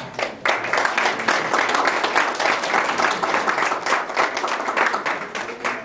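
Audience applauding, many hands clapping together; it starts about half a second in and thins out near the end.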